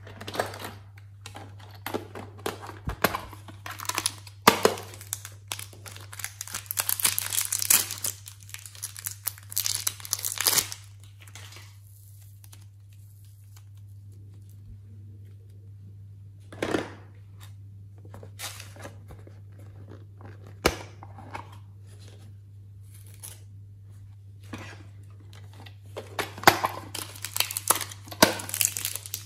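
Thin plastic wrappers around packets of modeling clay crinkling and tearing as they are handled and opened, in dense bursts of rustling for the first ten seconds and again near the end, with a quieter stretch of scattered small clicks and rustles in between.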